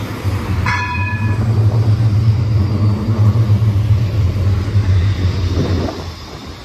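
A TNG (Tram Nouvelle Génération) low-floor tram passing close, with a steady low hum from its running gear and motors that drops away near the end as it goes by. A brief high ringing tone sounds about a second in.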